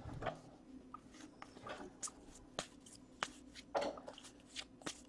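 Basketball trading cards being flipped through by hand: soft, irregular flicks and clicks of card stock sliding off the stack, several times.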